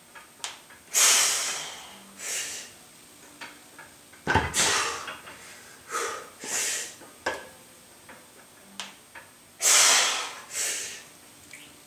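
A man breathing hard through a set of front squats under a plate-loaded yoke bar, sharp hissy breaths coming in pairs. Light clicks and one heavy knock about four seconds in.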